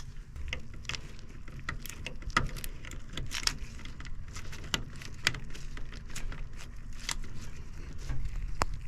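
Irregular sharp clicks and light taps, about one or two a second, of a PC power cable and its plastic connectors being handled and plugged in, over a steady low rumble.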